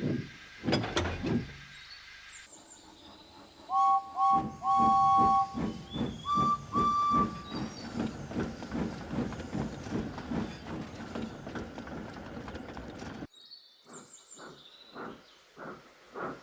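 Steam locomotive chuffing with a two-note whistle: three short toots and a longer blast about four seconds in, then a higher single-note toot. The chuffing stops abruptly near the end and then picks up again.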